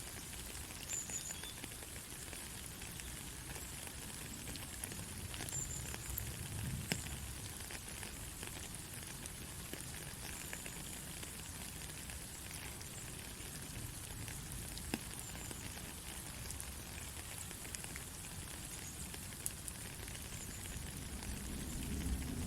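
Steady light rain: an even hiss with scattered ticks of drops striking.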